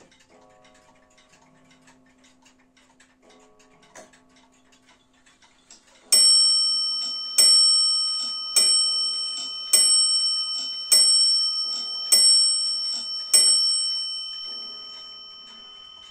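Warmink Wuba Dutch wall clock ticking softly, then striking the hour on its bell: seven evenly spaced strokes about 1.2 seconds apart, starting about six seconds in, each ringing on and fading.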